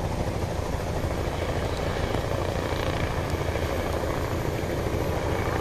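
Helicopter flying overhead, its rotor chopping steadily.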